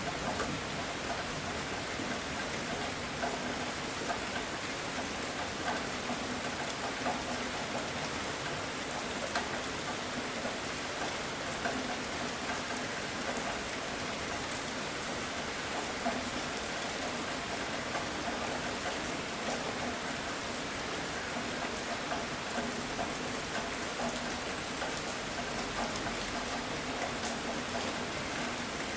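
Heavy rain falling steadily, with scattered individual drops ticking on a surface. The tail of a thunder rumble fades away at the very start.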